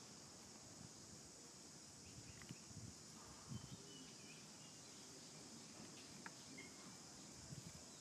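Faint outdoor ambience: a steady high-pitched insect drone, with a few brief faint chirps and some soft low rustles or thuds around three seconds in and again near the end.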